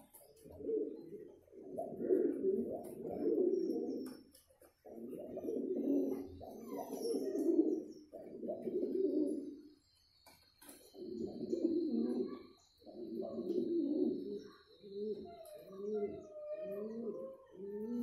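Domestic pigeon cooing in courtship: long rolling coos in phrases of a few seconds, then from about fifteen seconds in a run of short coos, about two a second.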